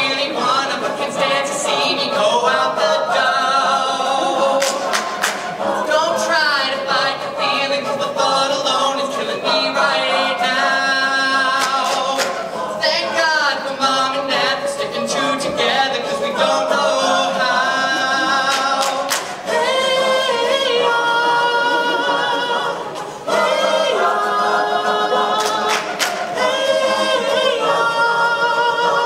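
Mixed-voice a cappella group singing a hip-hop medley: a lead voice over held backing chords from the group, with sharp percussive beats throughout.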